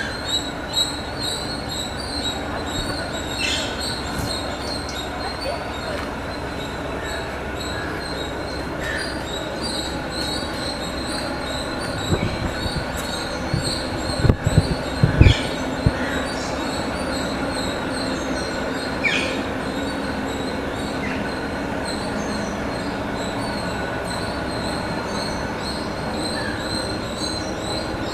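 Steady, high, pulsing drone of an insect chorus, with a few short bird chirps and several low thumps about halfway through.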